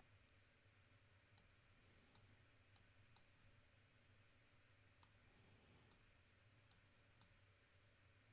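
Faint, scattered clicks of a computer mouse, about eight over several seconds, over quiet room tone with a low hum.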